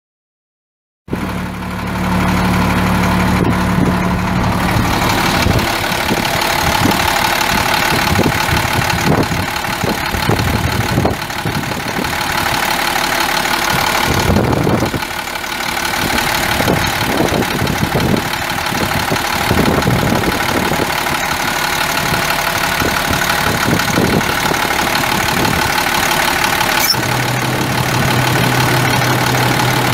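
International DT466 7.6 L inline-six turbo diesel engine running, mostly at idle; the sound cuts in about a second in. A steady low note is clear at first, turns rougher and uneven in the middle, and settles back to a steady low note near the end.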